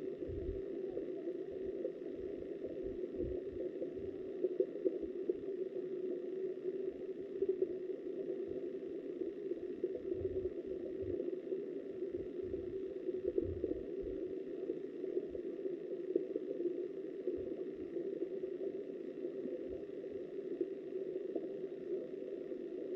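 River water rushing past a submerged camera, heard muffled through its waterproof housing as a steady low noise, with irregular low thuds as the current buffets the housing.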